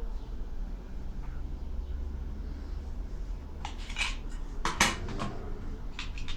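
A quick run of sharp clinks and clatters of hard objects knocked together, bunched about four to five seconds in with a couple more near the end, over a steady low hum.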